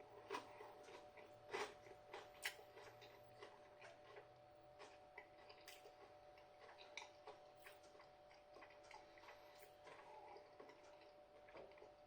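Faint crunching and chewing of a crispy fried-bread chicken toast topped with sesame seeds: irregular crisp clicks, the loudest in the first few seconds, thinning out after.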